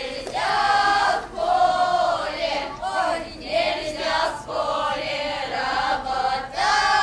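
A group of women's voices singing together without accompaniment, in drawn-out phrases of a second or two with short breaks between them.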